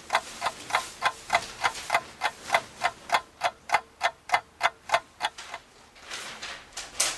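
Clock ticking steadily, about three and a half ticks a second, stopping about six seconds in. A soft hiss then swells into one sharp burst near the end.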